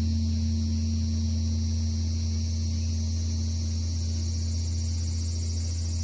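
Large Korean Buddhist temple bronze bell (beomjong) humming on after a stroke: a deep steady hum with a fainter higher tone, slowly dying away.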